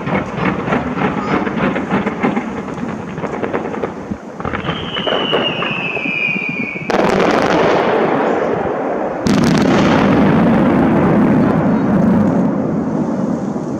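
Fireworks display: a rapid run of crackling pops, then a whistle falling slightly in pitch about five seconds in. Two heavy booms follow, about seven and nine seconds in, each trailing off in a long rumble.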